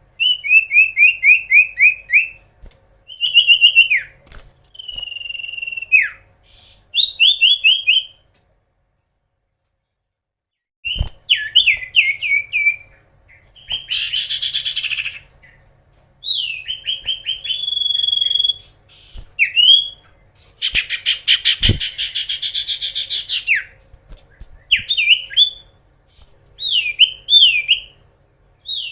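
Common iora (cipoh) singing loudly in quick runs of repeated whistled notes, broken by two harsh, buzzy chattering calls. The song stops for about three seconds a third of the way through.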